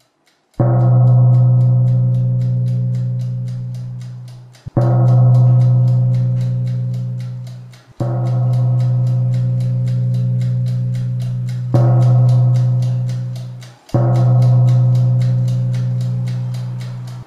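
Five deep ringing struck tones, each hitting sharply and fading out over three to four seconds, laid over a fast, even ticking like a clock.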